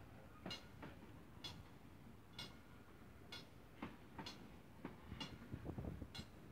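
Freight wagons rolling past at close range, their wheels clicking on the rails about once a second over a low rumble that swells near the end.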